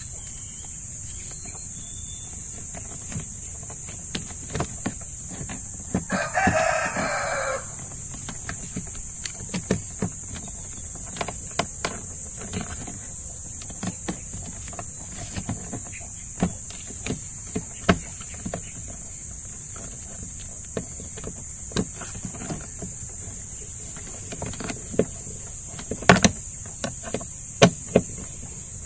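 Scattered light clicks and taps of a screwdriver turning the screw of a car's interior door handle, over a steady high hiss. A rooster crows once about six seconds in.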